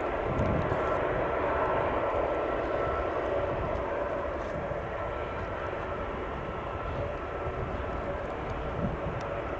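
Airbus A321neo airliner taxiing, its twin turbofan engines running steadily at low power, with faint steady tones over the rumble.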